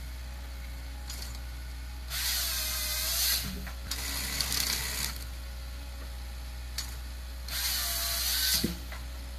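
A forestry machine running with a steady low hum, broken by three loud bursts of harsh mechanical noise lasting about a second each, their pitch dipping and then recovering.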